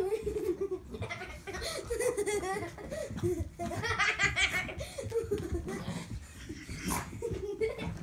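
Hearty human laughter that keeps breaking out in repeated bursts.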